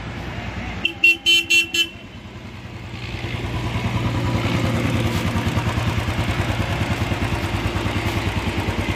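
Royal Enfield Classic 350's single-cylinder engine running with an even, pulsing thump. About a second in, a horn beeps four short times in quick succession. The engine grows louder from about three seconds in and stays steady.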